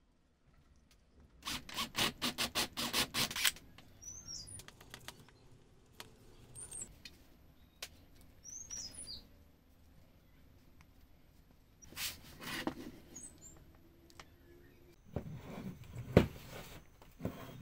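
Small wooden toy parts being worked and fitted by hand: a quick run of rubbing or scraping strokes a couple of seconds in, more past the middle and near the end, and one sharp wooden knock near the end. Birds chirp faintly a few times in between.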